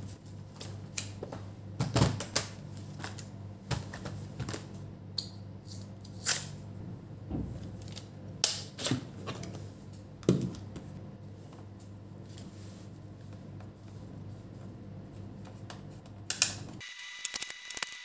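HP EliteBook 8440p laptop being handled: its lid closed and the machine turned over, giving scattered clicks and knocks of its plastic case, over a steady low electrical hum that stops abruptly near the end.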